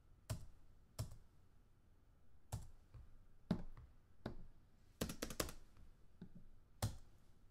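Computer keyboard typing, unhurried: single keystrokes at uneven intervals, with a quick run of several keys about five seconds in.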